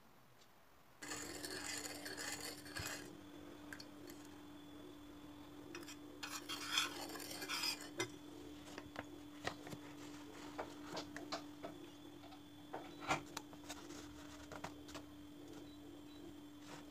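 Metal spoon clinking and scraping in a stainless steel bowl of liquid, in scattered sharp clicks with stretches of scraping, over a steady low hum that starts about a second in.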